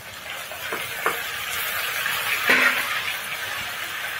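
Ground spice paste sizzling in hot oil in a wok, with a few sharp knocks of a spoon against the pan as it is stirred. The sizzle swells to its loudest about two and a half seconds in.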